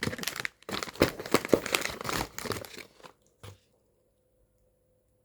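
Packaging being handled: crinkling and rustling for about three seconds, then a single light tap.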